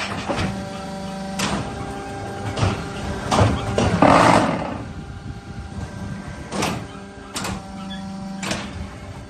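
Concrete block making machine running: a steady motor hum with repeated sharp metallic clanks about once a second or two, and a louder, rushing noise about four seconds in.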